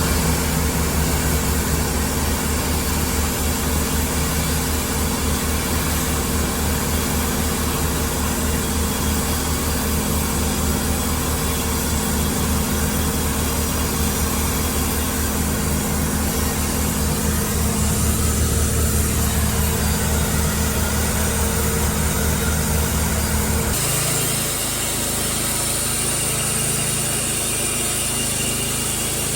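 An engine running steadily. About 24 seconds in, the sound changes abruptly: the deep hum drops away and a steadier, higher-pitched machine sound takes over.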